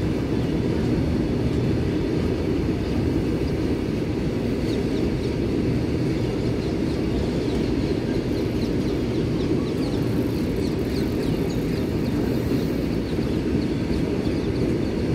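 Loaded freight train's wagons rolling past at a steady pace: a continuous low rumble and rattle of wheels on rail.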